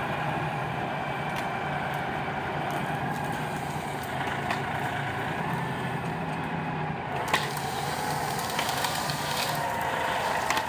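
Tractor engine running steadily under load as it pushes a fallen tree aside, with a few sharp cracks of wood snapping.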